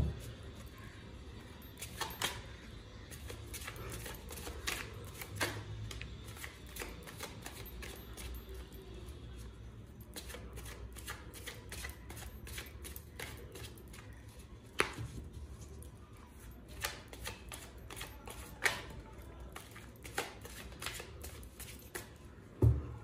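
A deck of tarot cards being shuffled by hand: an irregular scatter of soft flicks and taps as the cards slip against each other, a few of them sharper.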